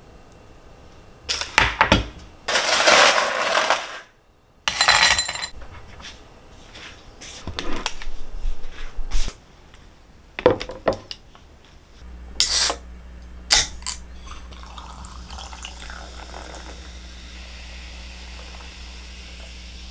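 A can of Coca-Cola is handled and hissed open, then dishes are set down on a table with a few knocks. Near the end the cola is poured into a glass and fizzes with a steady fine hiss.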